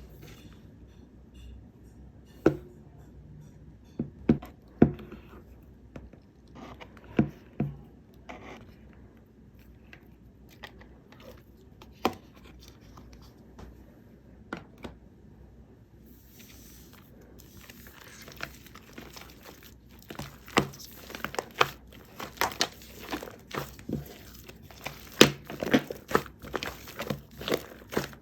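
Slime mixed with shaving foam and add-in parts being squeezed and poked by hand, making sticky clicks and pops. The pops are scattered at first and come thick and fast from a little past halfway.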